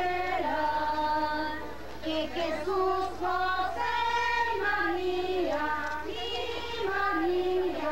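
A group of children and women singing a Christmas posada song together, slow held notes stepping through a simple melody.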